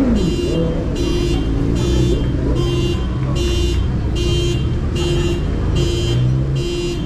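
An electronic alarm beeping over and over at an even pace, a little more than one harsh, buzzy beep a second, over a continuous low rumble.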